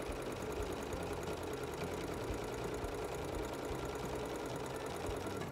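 Singer Patchwork 7285 sewing machine running steadily at speed, stitching through layered cotton fabric and felt.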